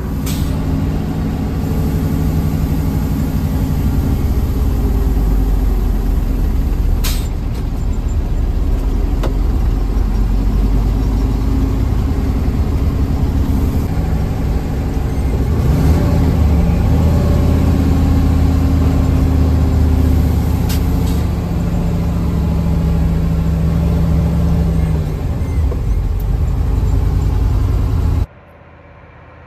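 The air-cooled Deutz V10 diesel of a 1978 Magirus Deutz 310D22 truck pulling on the road, heard from inside the cab. The engine note shifts and climbs about halfway through, with a few short clicks along the way. The sound drops away suddenly near the end.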